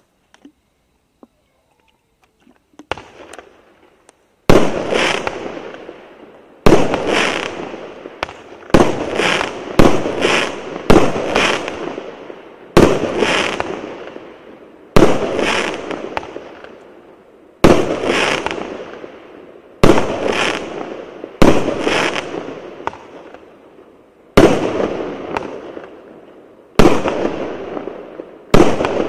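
A 20-shot, 1-inch fireworks cake firing. Starting about four seconds in, a sharp report comes every one to two and a half seconds, each followed by a tail that fades away over a second or two.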